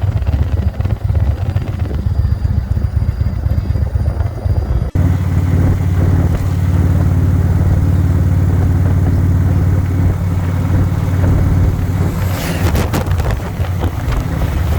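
Indian Roadmaster Elite motorcycle's V-twin engine running at a steady cruise, with wind noise. About five seconds in, the sound changes abruptly to a smoother, steadier engine drone, and near the end a short high sweep falls in pitch.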